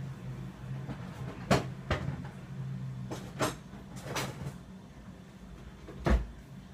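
Kitchen knocks and clatter of utensils and cookware: five or so sharp knocks, the loudest a heavy thump near the end. A steady low hum underneath stops about two-thirds of the way through.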